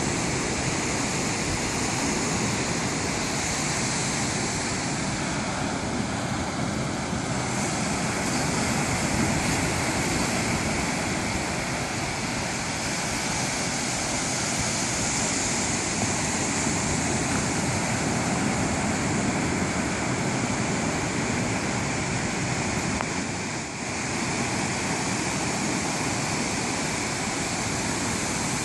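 Ocean surf breaking and washing up a sandy beach: a continuous rushing noise that slowly swells and eases in loudness, dipping briefly near the end.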